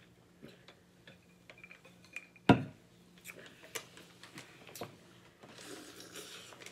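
Seafood boil being peeled and eaten by hand: scattered small clicks and cracks of shell and handling at the table, with one sharp knock about two and a half seconds in, and soft wet eating noise near the end.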